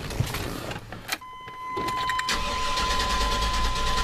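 A truck's starter motor cranking its V8 engine without it catching. A steady high-pitched tone comes in about a second in, and the cranking starts about two seconds in. The engine has a fresh distributor cap and rotor but will not fire, and the owner suspects a low battery may be part of the problem.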